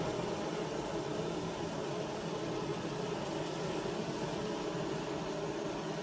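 Honeybee colony humming steadily in its wooden hive, a low even drone. The strong hum comes from the bees fanning to dry the nectar brought in that day, a sign of a good nectar flow.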